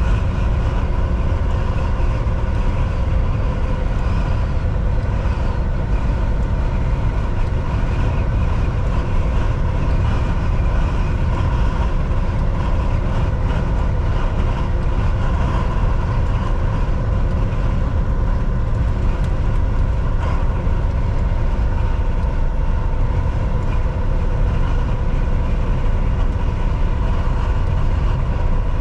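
Volvo VNL 760 semi truck cruising at a steady highway speed: an even engine drone with road and tyre rumble, and a few steady tones held above it, unchanging throughout.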